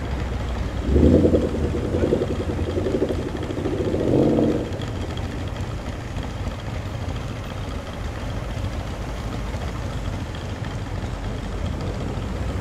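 A line of show cars driving slowly past, their engines running at low speed. The engine noise swells twice in the first five seconds, then settles to a steady low hum.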